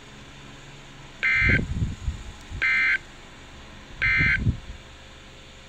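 NOAA weather radio's speaker sounding three short, harsh digital data tones, evenly spaced about a second and a half apart. These are the end-of-message bursts that close a weather alert broadcast. A brief low rumble follows the first and the last.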